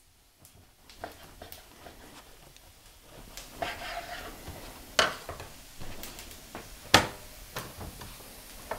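Flatbread being cut into quarters with a knife: soft rustling and crackling of the bread, with a few sharp knocks, the loudest about five and seven seconds in.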